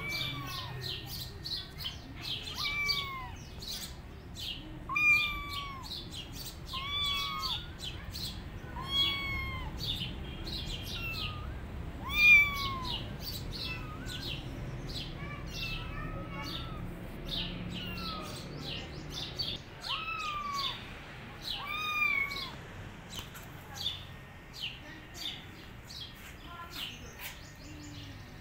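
Kitten meowing over and over, one short rise-and-fall meow every second or two, the loudest about halfway through, falling quiet a little past two-thirds of the way. Birds chirp in the background throughout.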